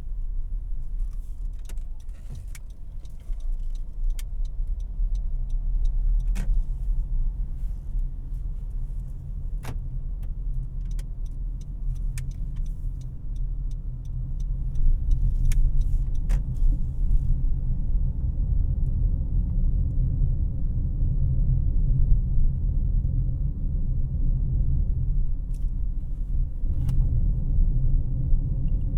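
Interior cabin noise of a 2018 Honda CR-V LX being driven: a steady low rumble of engine and road that grows louder about halfway through, with scattered light clicks and rattles.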